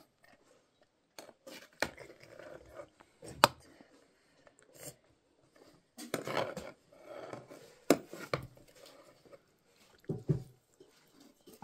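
A metal skimmer scraping and clinking against a metal pot and serving platter as rice pulao is dished out, with several sharp clinks, the loudest about three and a half seconds in, between shorter stretches of scraping.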